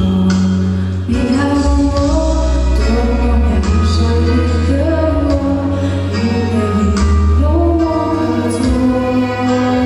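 A woman singing a slow pop ballad solo over instrumental accompaniment with a steady, prominent bass.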